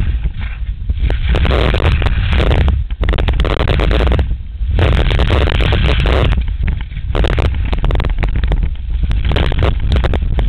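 Wind buffeting the microphone of a knee-mounted action camera during a ski descent, a constant heavy rumble. Over it, the skis' edges hiss and scrape on the snow in surges of a second or so as they carve turns.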